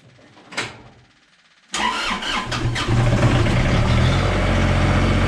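A single knock about half a second in. Then, about two seconds in, the John Deere 35ZTS excavator's diesel engine starts up, runs unevenly for a moment, and settles into a steady run.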